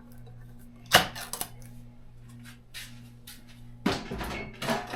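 Kitchen handling noise from dog-food cans and dishes: a sharp click about a second in, a few lighter clicks and taps, and a longer run of knocks and scrapes near the end, over a steady low hum.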